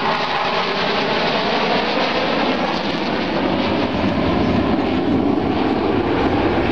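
Jet noise from a four-ship formation of Sukhoi Su-27 fighters, twin AL-31F turbofans each, flying overhead: a loud, steady rumble whose tone shifts slowly in the second half as the formation moves across the sky.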